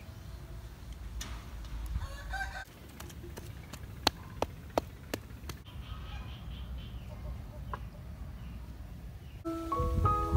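Chickens clucking and a rooster crowing, heard in short snatches. A few sharp clicks stand out around the middle. Music with steady, mallet-like notes comes in near the end.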